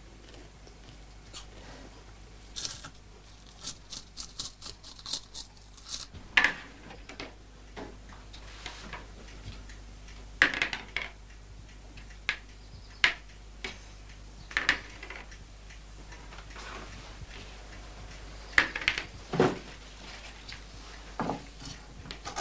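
Scattered light clicks and knocks of plastic game pieces and a die on a Mensch ärgere Dich nicht board, with a quick run of taps about three to five seconds in.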